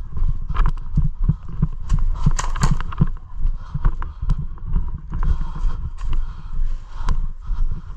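Footsteps of a player running, thumping in a steady rhythm of about two to three a second, with a few sharp clicks about halfway through.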